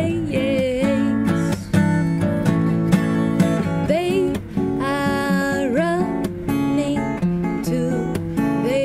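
Acoustic guitar strummed under a singing voice, the sung phrases breaking off briefly now and then.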